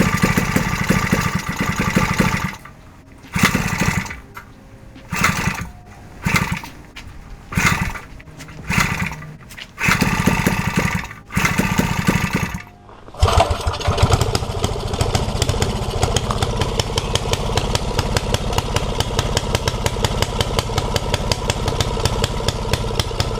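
Five-horsepower flathead Briggs & Stratton single-cylinder engine, with a homemade header and no governor, being started: it fires in short bursts that die away again several times, then about thirteen seconds in it catches and runs steadily.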